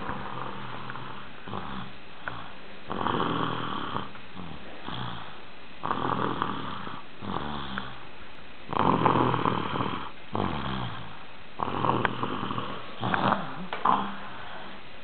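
Snoring, one snore on each breath about every two to three seconds, some breaths louder than others.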